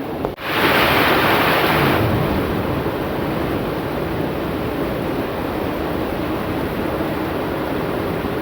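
Steady heavy rain. About a third of a second in there is a brief click and dropout, then a louder, hissier stretch lasting about a second and a half before the rain settles back to an even level.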